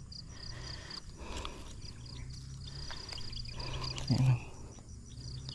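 Insects chirping in a fast, steady pulsing trill, with faint handling noise from pliers working at a hooked fish. About four seconds in comes a brief, low vocal sound, the loudest moment.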